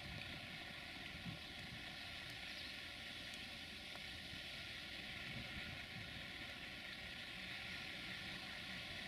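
060-DA (LDE2100) class diesel locomotive's Sulzer engine running, faint under a steady hiss. A low steady engine hum comes up near the end.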